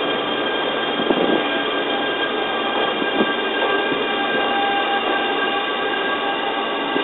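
Electric train rolling slowly along a station platform: a steady mix of motor hum and whine tones, with a couple of faint knocks from the running gear.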